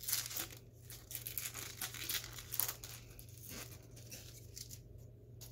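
A foil trading-card pack wrapper being torn open and crinkled by hand, a quick run of crackling for the first three seconds or so that thins to a few scattered crinkles near the end.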